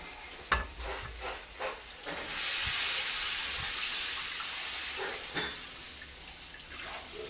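Fish stock (fumet) poured from a saucepan into a hot paella pan of squid-ink sofrito: a steady splashing, hissing pour that starts about two seconds in and tails off after about five seconds, with a sharp knock about half a second in.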